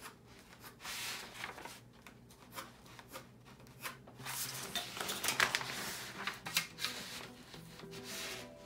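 Pencil scratching on pattern paper along a ruler in a run of irregular strokes, with rulers and paper rubbing and sliding, busiest in the middle. Faint background music underneath.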